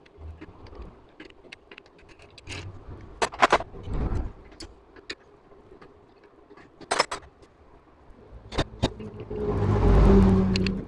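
Metal hand tools clinking and knocking against motorcycle engine parts in scattered sharp clicks. Near the end a louder steady hum with a noisy whirr sets in and lasts about two seconds.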